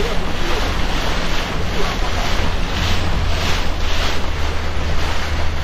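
Speedboat running at speed: a steady low engine drone under the rush of water and spray from the hull and wake, with wind buffeting the microphone.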